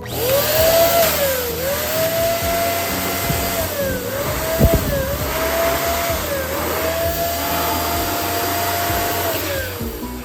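Electric balloon inflator pump running, a steady motor whine over rushing air that dips in pitch several times and winds down near the end. A single sharp knock comes about halfway through.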